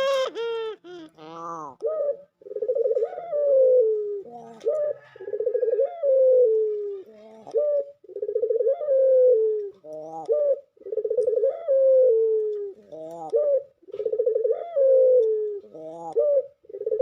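A dove calling: a quick run of rising-and-falling laughing notes at the start, then a rolling, pulsing coo that slides down in pitch, repeated about five times roughly every three seconds, each led by a short note. This is the 'laughing' call that gives these doves their name.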